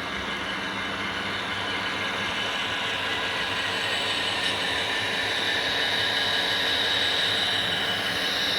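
HO scale model train with a Pan Am diesel locomotive running along the track: a steady high motor whine and wheel rolling noise, growing louder as it draws closer. It is crossing newly laid bridge track smoothly.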